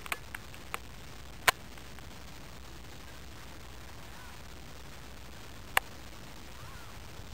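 Steady outdoor background hiss broken by a few sharp clicks, the loudest about a second and a half in and another near six seconds, with faint bird calls twice in the second half.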